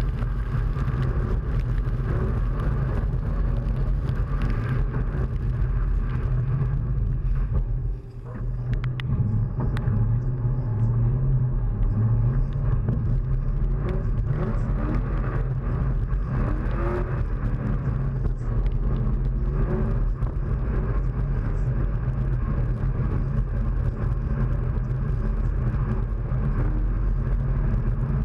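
Drift car's engine running under throttle on a wet track, with steady road and water-spray noise. The sound drops briefly about eight seconds in, then builds again.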